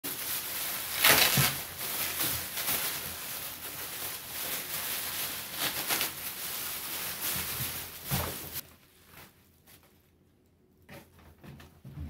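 Plastic wrapping bag crinkling and rustling as it is pulled off a small countertop dishwasher, loudest about a second in. It stops about three seconds before the end.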